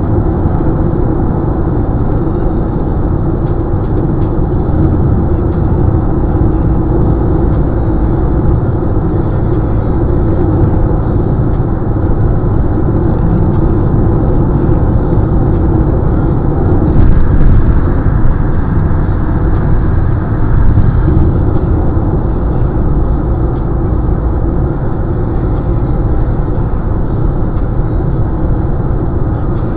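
Steady road noise of a car cruising at highway speed, heard from inside the cabin: a low tyre and engine drone, briefly louder a little past halfway.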